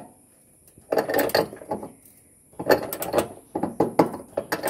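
Socket ratchet wrench, its handle lengthened with a steel pipe, clicking in three quick bursts as the handle is swung back and forth while loosening a bolt.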